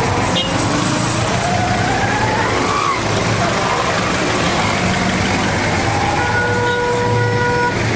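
Minibus taxi engines running and idling close by in dense traffic. A horn sounds one steady note for about a second and a half near the end.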